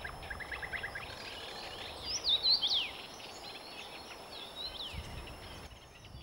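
Young common rosefinch singing: a short phrase of clear whistled notes that slide steeply down in pitch, about two seconds in, then a fainter phrase near five seconds. A quick run of short notes sounds near the start, and other birds twitter faintly in the background.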